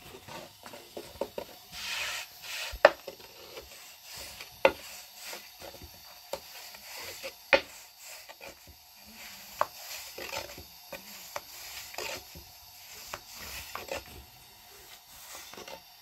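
A long, thin wooden rolling pin rolling flatbread dough out on a floured round wooden board: dry rubbing and swishing, broken by irregular sharp wooden knocks and clicks as the pin taps against the board, the loudest about three and seven and a half seconds in.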